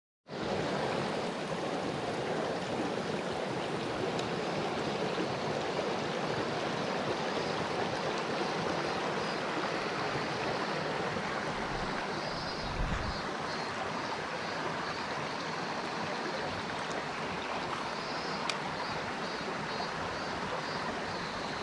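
Shallow mountain stream running over rocks and pebbles, a steady rush of water that starts abruptly just after the beginning.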